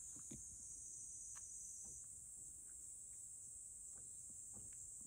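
Faint, scattered soft clicks of a cat eating from a dish, under a steady high-pitched hiss.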